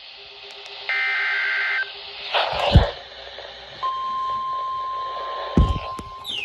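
NOAA Weather Radio starting a new warning: a one-second burst of the two-pitch SAME digital header screech, a short crackle, then the steady single-pitch 1050 Hz warning alarm tone for about two seconds, with a thump near the end.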